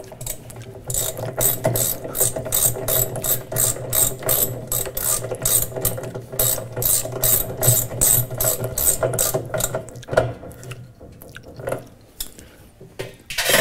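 Socket ratchet wrench clicking in a long run of quick, even strokes as it turns the bolt in the centre of a washing machine's drum hub. The clicking stops about ten seconds in, with a few more clicks near the end.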